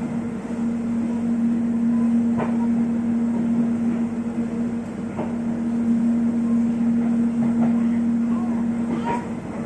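Inside the cabin of an electric airport train underway: a steady hum over running rumble, with a few sharp clicks about two and a half, five and nine seconds in.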